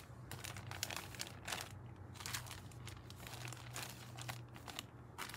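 Packaging crinkling and rustling in quick, irregular crackles as packets are handled and opened.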